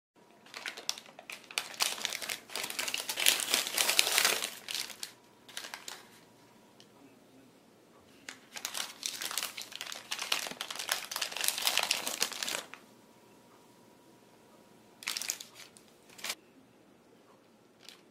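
White paper pastry bags crinkling and rustling as they are unwrapped by hand: two long spells of crinkling, then two brief rustles near the end.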